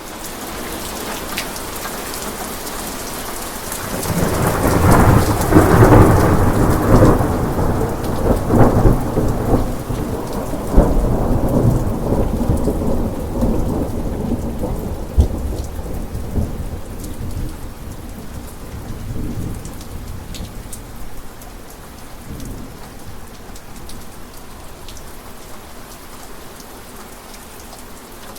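Steady rain falling, with a long roll of thunder that breaks in loudly about four seconds in, cracks and rumbles for several seconds, then slowly fades back under the rain.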